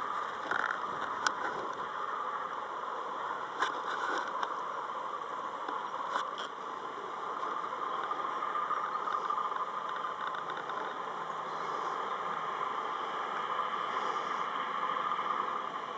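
Massey-Ferguson 4365 tractor engine running steadily as it tows a slurry tanker, with a few brief sharp clicks in the first six seconds.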